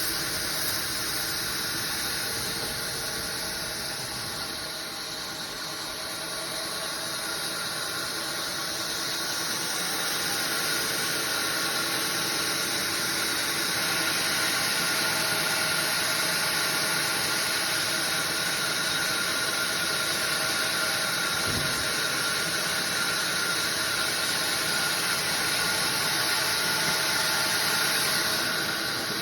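Sawmill machinery running steadily: a constant high hiss over a hum of several steady tones, dipping slightly a few seconds in, then swelling a little and holding.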